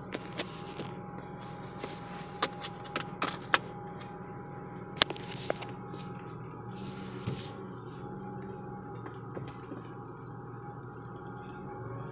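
Inside the cabin of a moving 2004 Nissan Xterra SE four-wheel drive: a steady drive drone with a thin steady tone above it, and irregular sharp clicks and creaks, the loudest about five seconds in. This is the noise whose normality the owner questions.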